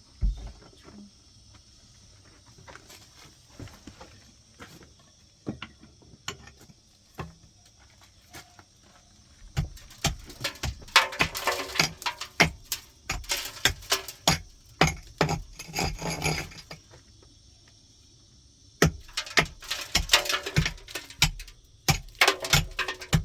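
Irregular knocks and scraping from handwork, sparse at first, then coming thick and fast in two busy stretches, one starting a little under halfway in and one near the end.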